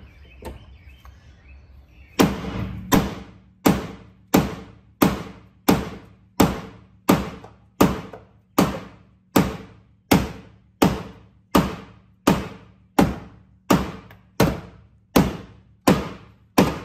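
A slow, perfectly even percussive beat: a heavy thudding hit about every 0.7 s, starting about two seconds in, each hit identical, like the kick drum of a music track laid over the footage.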